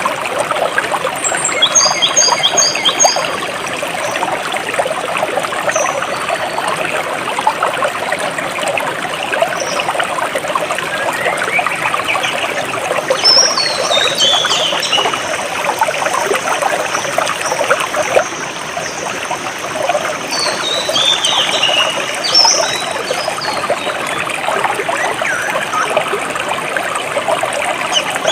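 Clear water trickling and splashing steadily over rocks in a jungle stream, with birds chirping: a quick run of high repeated notes near the start and two falling series of chirps around the middle and past it.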